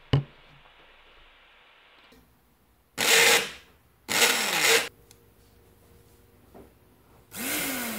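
Motor of a Lidl SilverCrest SSM 180 A1 smoothie maker running in three short bursts, its pitch rising as it spins up and falling as it coasts down; the last run, near the end, is the longest. It runs again now that the safety interlock button, probably stuck before, is freed. A plastic click just after the start as the cup is seated on the base.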